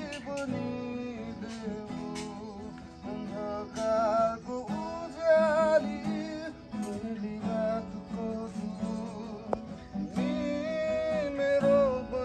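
Acoustic guitar strummed in chords while a man sings along.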